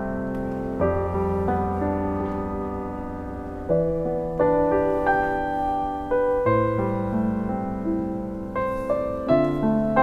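Piano music from the background score: single notes and chords struck about once or twice a second and left ringing.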